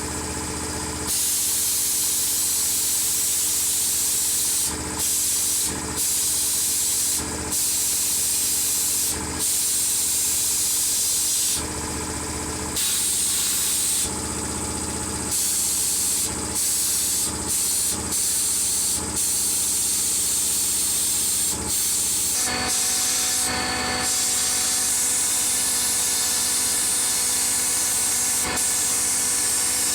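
Compressed air hissing from an air-tool nozzle in repeated bursts, cut off by many short pauses, over the steady hum of a running motor.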